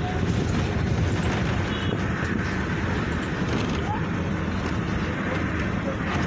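Steady rumble of road traffic, an even, unbroken noise.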